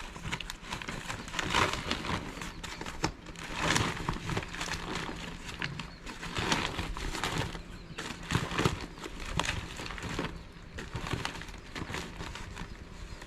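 Nylon cast nets being handled: irregular rustling swells with scattered light clicks and knocks.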